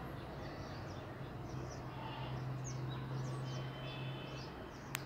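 Small birds chirping in many short, high calls over a steady low hum, with one sharp click near the end.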